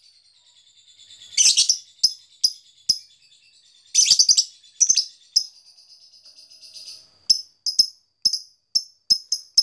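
Fischer's lovebird calling with sharp, high chirps. There are two longer, loud chattering bursts about one and a half and four seconds in. From about seven seconds on comes a quickening run of short, clicking 'ngetik' chirps.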